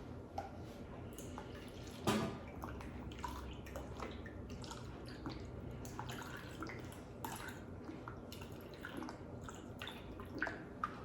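Bottled lime juice being poured and dripping, with small clicks throughout and one sharper knock about two seconds in.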